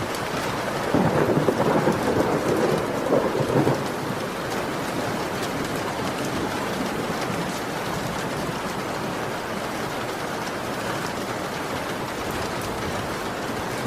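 Steady heavy rain, with a roll of thunder starting about a second in and fading out after about three seconds.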